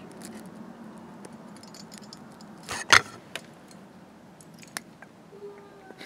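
Small metal clicks and taps from fingers working the parts of a Kwikset lock cylinder, pressing the pin springs down and fitting the top retaining cap back on. One louder clatter comes about three seconds in.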